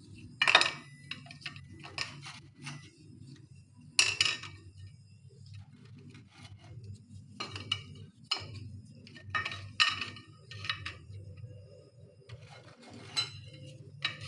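Marie biscuits being laid one at a time in a glass baking dish: light irregular clicks and taps on the glass, over a low steady hum.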